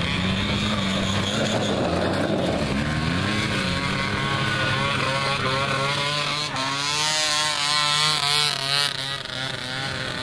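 Small engines of youth mini quads (ATVs) running and revving; in the second half the revs waver quickly up and down as a quad pulls away.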